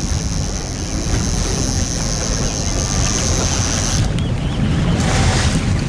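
Wind buffeting the microphone over a fishing boat's engine running steadily while trolling, with the sea washing around the hull.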